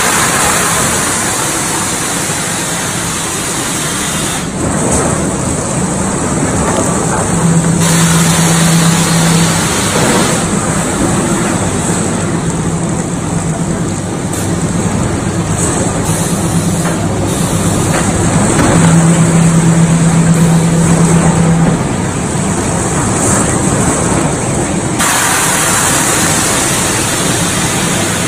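Hot rolling mill for steel bar running: a loud, steady industrial din of roller tables and mill machinery, with a low hum that swells twice for a few seconds each.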